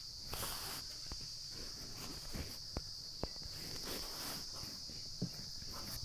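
Faint, steady high-pitched chirring of crickets in the background, with a few brief faint clicks scattered through.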